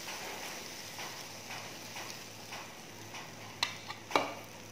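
Beaten egg frying in a hot pan of stir-fried vegetables, a low steady sizzle. Two sharp clinks come near the end as the last of the egg is emptied from a china bowl over the pan.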